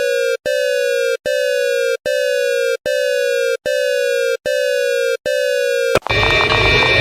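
Electronic emergency alert tone: a buzzy beep about three-quarters of a second long, falling slightly in pitch, repeated eight times with short gaps. About six seconds in it cuts abruptly to a different, denser alert sound.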